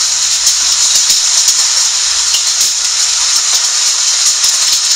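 A hailstorm with heavy rain pelting corrugated roofs and a tiled porch: a loud, dense, steady hiss with many sharp ticks of hailstones through it.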